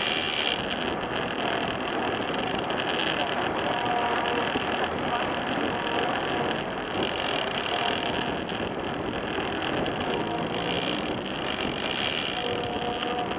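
Steady rolling noise of a recumbent bicycle on asphalt, picked up close by a camera on its frame, with a high hiss that swells and fades every few seconds.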